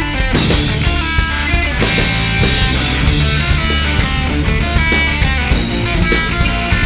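A Spanish-language rock song plays loud and steady, with electric guitar over bass and a drum kit.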